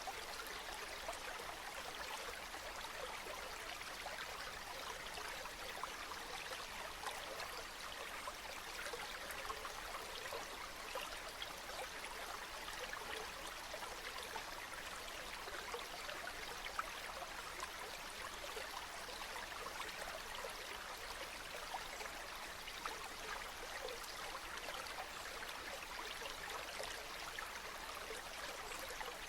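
A small stream running steadily, its water babbling and trickling over stones in many small splashes.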